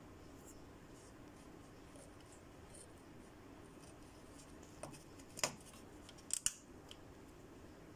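A plastic push-pin clip on a car's grille mount being pressed and handled by fingers: a few sharp plastic clicks about halfway through, two of them close together, over a faint steady hum.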